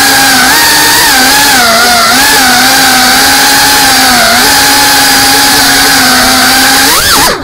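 FPV quadcopter's brushless motors and propellers whining steadily, the pitch wavering up and down as the throttle is worked. Near the end the pitch swings sharply and the sound briefly drops away as the throttle is chopped.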